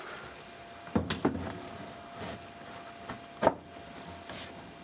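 Knocks and taps of a piece of laminate countertop with a particleboard core being lowered into a narrow gap and set down on its supports. A quick cluster of knocks comes about a second in, and the loudest single knock about three and a half seconds in.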